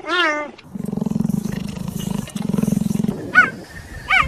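Cheetah vocalising: a high chirp, then a low, rapidly pulsing purr in two long stretches, then two more short high chirps near the end.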